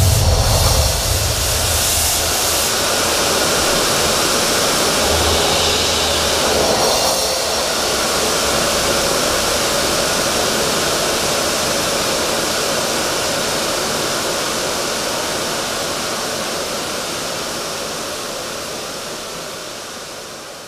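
Steady, loud rushing hiss of stage CO2 jets spraying vapour plumes, fading away near the end.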